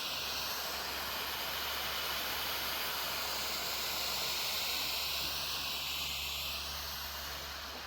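Coloured smoke fireworks hissing steadily as they burn, starting to die away near the end as they burn out.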